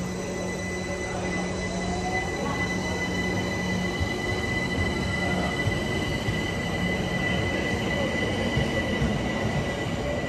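London Overground Class 378 electric multiple unit pulling out of the station: a steady rumble of wheels on rail, traction motors whining with rising tones, and a high steady squeal over the top.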